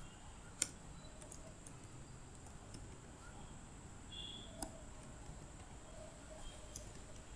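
A few faint computer mouse and keyboard clicks over a quiet low background hum, the clearest about half a second in and again past the middle.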